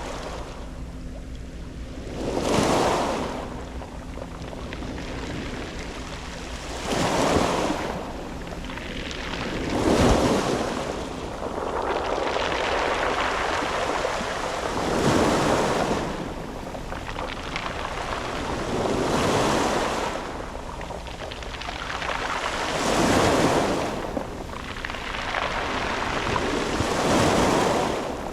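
Sea waves breaking on a round-pebble beach: a wash of surf that swells and falls back about every four seconds.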